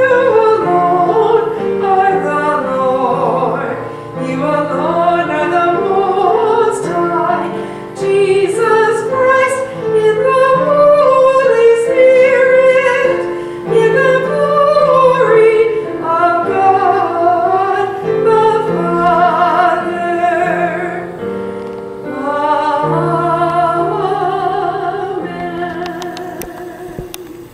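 A singing voice with vibrato over keyboard accompaniment, a hymn or canticle at a church service, fading out near the end.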